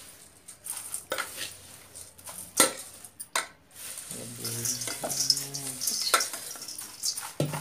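A steel spoon clinks and scrapes against stainless steel bowls as dry chivda (flattened-rice snack mix) is scooped and poured, with sharp knocks now and then. A dry rustling hiss of the flakes pouring runs through the second half.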